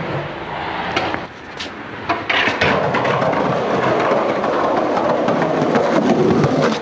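Skateboard wheels rolling over concrete: a steady rolling rumble that builds from about two seconds in, after a few sharp clicks and knocks before it.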